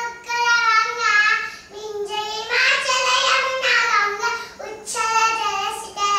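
A young child singing alone without accompaniment, a high voice in long held phrases with short breaths between them.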